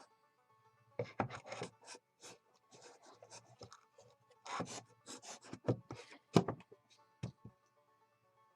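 Irregular scraping and rubbing of wooden workbench parts being handled and fitted during assembly, with one sharp knock a little after six seconds in.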